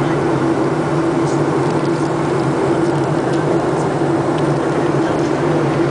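Jet airliner cabin noise in cruise flight: a steady engine and airflow drone with a constant low hum.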